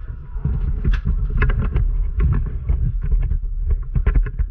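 Irregular thumps and knocks over a low rumble: footsteps and handling noise from a camera carried by a player on the move.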